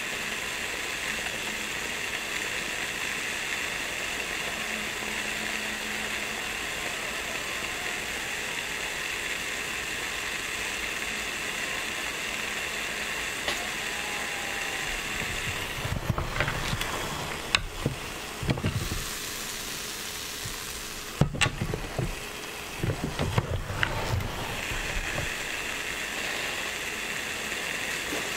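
Croissant dough sizzling inside a closed, heated rotating waffle maker: a steady rain-like hiss. A little past the middle the hiss dips and two short runs of knocks and low thumps sound, a few seconds apart.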